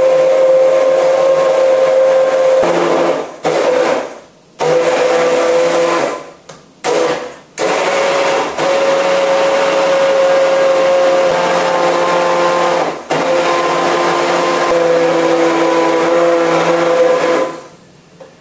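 Hand-held immersion blender running in a jug of soaked almonds, dates and water, grinding the nuts as fine as it can to make almond milk. The motor whirs steadily with a clear hum, stops and restarts several times in the first half, and is switched off shortly before the end.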